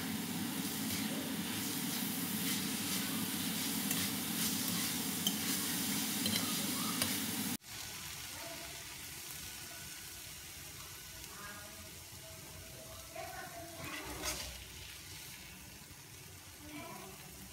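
Minced chicken sizzling in oil in a frying pan while a metal spatula stirs and scrapes it, with scattered clicks of the spatula on the pan. It cuts off abruptly about seven seconds in, and a much quieter stretch follows with a few soft knocks.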